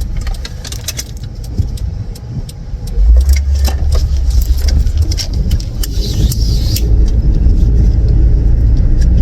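Car on the move, heard from inside: a low road and engine rumble that gets markedly louder about three seconds in, with scattered small clicks and knocks.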